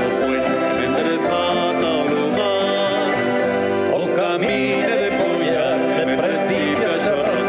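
Folk band playing live on stage: strummed guitars and other traditional plucked strings over a double bass, in a steady song passage.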